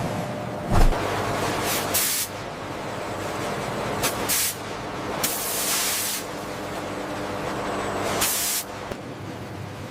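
Factory machinery: a steady hum with several short bursts of hissing air spaced a second or more apart, like pneumatic valves venting.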